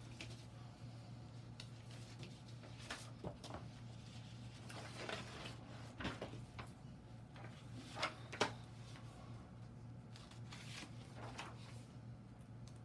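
Picture book being handled and its pages turned: soft paper rustles and a few light clicks and taps, the sharpest about eight seconds in, over a steady low electrical hum.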